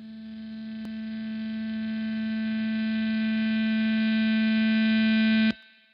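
A steady pitched tone, rich in overtones, swelling louder and then cutting off suddenly near the end, with a faint click about a second in.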